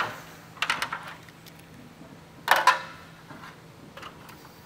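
Stepladder being shifted and climbed: a few short clattering knocks, the loudest about two and a half seconds in, then faint taps.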